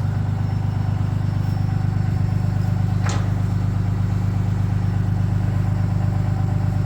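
A motor vehicle's engine running steadily: a loud low hum with a fast, even pulse, and one brief sharp sound about three seconds in.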